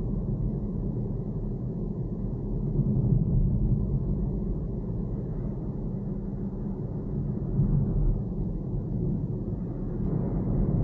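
Cabin noise of a Peugeot 408 being driven: a steady low rumble from its 1.2-litre three-cylinder petrol engine and tyres on the road, growing a little louder near the end.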